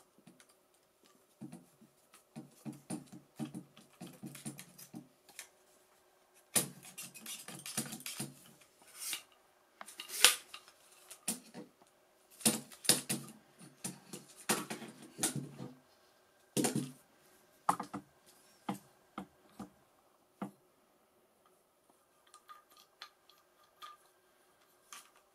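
Plastic tripod head being handled and worked by hand: clicking, knocking and rubbing of its parts, with several sharp clicks in the middle and only a few faint ones near the end.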